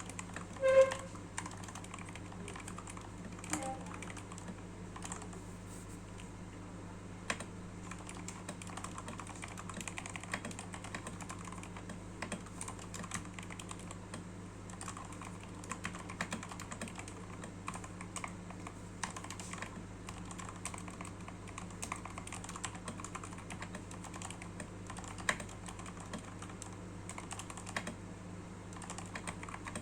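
Continuous typing on a Fantech Maxfit61 60% mechanical keyboard modded with foam and hand-lubed red linear switches under PBT keycaps, giving a steady stream of irregular, muted keystrokes. It is heard through a phone microphone with a steady low hum underneath. A brief louder pitched sound comes about a second in.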